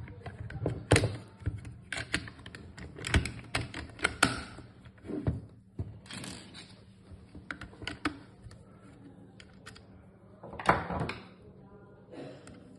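Metal parts of an espresso machine brew group clicking and knocking as they are handled and fitted together: irregular sharp taps about once a second, thinning out, with a louder knock about eleven seconds in.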